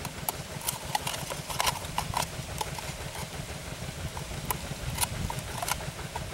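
Scissors snipping slits into the end of a paper instant-noodle cup: a string of irregular sharp snips and clicks, over a low steady rumble.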